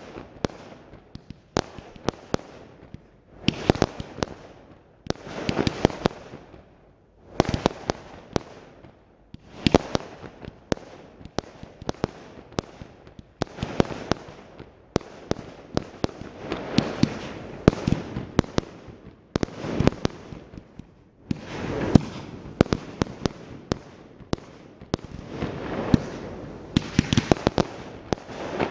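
Fireworks display: a rapid barrage of sharp bangs from aerial shells launching and bursting, several a second in clusters, with crackling swelling between them.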